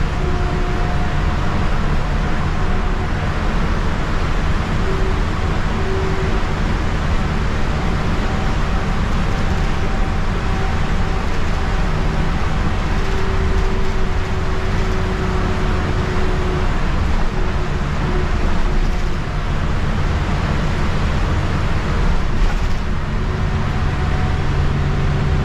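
City bus running at road speed, heard from inside the passenger cabin: a steady engine drone and road noise, with a faint whine that comes and goes.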